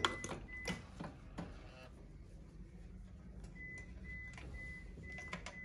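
Faint clicks and knocks of hand tools and a compression gauge being handled over the engine's spark plug wells, clustered in the first second or so. Near the end a faint high beep repeats in short pulses.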